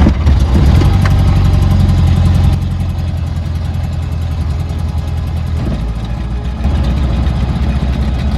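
Rotax 912ULS four-cylinder engine of a Bushcat light aircraft running. It runs louder for about the first two and a half seconds, then drops back to a steadier, quieter idle.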